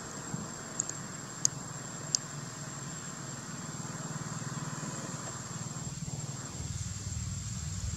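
Outdoor background: a steady low hum and a thin, high, steady whine, with a few sharp clicks in the first two seconds.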